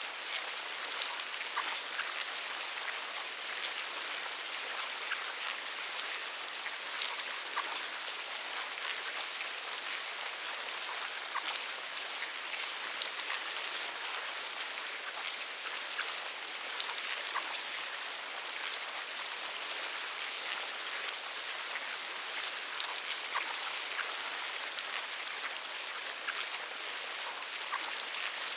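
Insect larvae making a steady, dense patter of tiny clicks and crackles over a fine hiss, like light rain.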